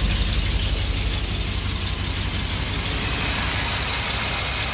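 1985 Chevrolet C10 pickup's engine, fitted with wrapped exhaust headers, idling steadily and evenly with a humming sound, running on its own without the choke shortly after a cold start.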